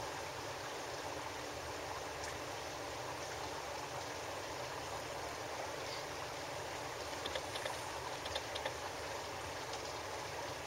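Steady outdoor background hiss, with a few faint light clicks about seven to nine seconds in.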